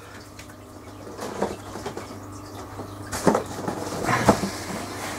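A cardboard boot box being handled, with soft scrapes and a few knocks; the loudest knocks come about three and four seconds in.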